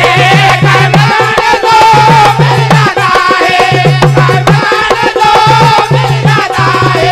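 Indian devotional folk ensemble playing an instrumental passage: a dholak drum beating a fast repeating rhythm under a harmonium melody, with small hand cymbals clicking along.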